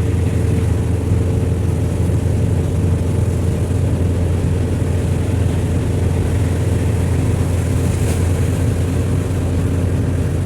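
Steady, loud drone of a moving road vehicle's engine and road noise, low-pitched and unchanging.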